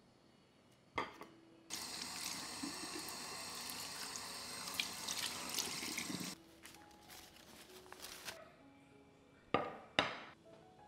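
Tap water running over sausages held on a plate in a stainless steel sink, splashing for about four and a half seconds and then shut off. Near the end come two sharp knocks, the plate being set down on the countertop.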